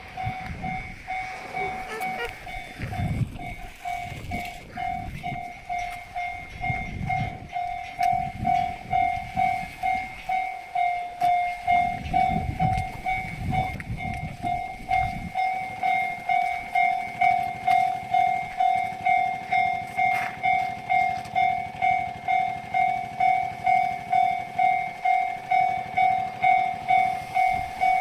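Railway level-crossing warning bell ringing in a rapid, even ding-ding, about two strikes a second: the crossing is active, signalling an approaching train. A low rumble underneath stops about halfway through.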